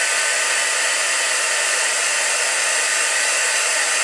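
Heat embossing tool blowing steadily, its fan motor giving a faint steady whine, as it melts silver embossing powder on card stock.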